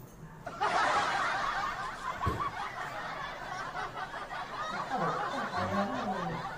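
A crowd laughing together, a canned sitcom-style laugh track, starting about half a second in.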